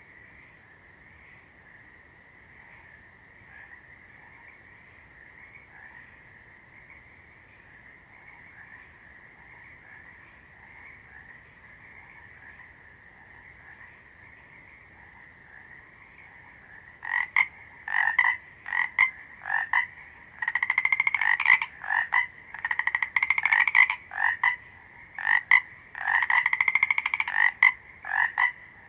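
A faint, steady chorus of frogs croaking. A little over halfway through, nearby frogs start calling loudly, first in short repeated croaks and then in longer trilling bouts.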